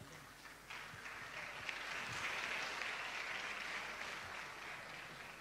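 Faint applause from an audience, swelling about a second in and fading away toward the end.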